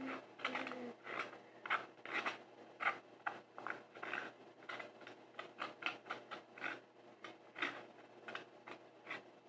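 Repeated short rubbing and scraping strokes, irregular, about two to four a second, with a brief falling whine in the first second.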